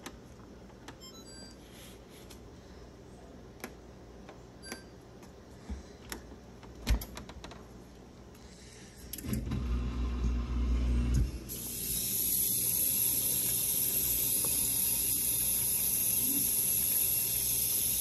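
GE dishwasher starting a cycle: a few light clicks, then about nine seconds in a low motor hum for about two seconds, then a steady hiss of water flowing in through the fill valve. The tub is filling rather than draining, the sign that the stuck pressure sensor no longer holds it in drain.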